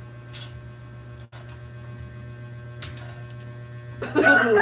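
A steady low electrical hum with a few faint clicks. About four seconds in, a rooster starts crowing loudly.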